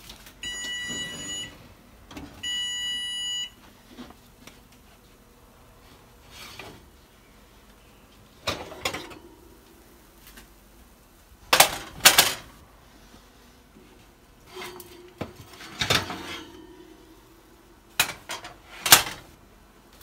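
An electric oven's timer beeping twice in long, steady tones. Then metal cupcake tins clatter and clank as baked cupcakes are taken out of the oven and set on the stovetop, with the loudest clanks about twelve seconds in and again near the end.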